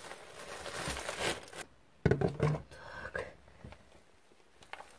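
A person crawling through a narrow rock passage: clothing rustling and scraping against stone. A long scuffing rush comes first, then a sudden knock and scrape about two seconds in, and a few softer scuffs after it.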